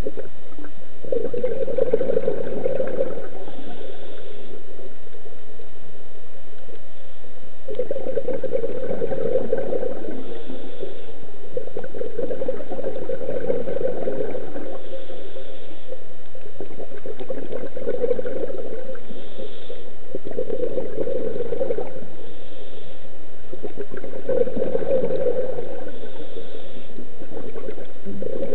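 Scuba diver breathing through a regulator underwater: gurgling bursts of exhaled bubbles every three to four seconds, with a faint short hiss of inhalation in between.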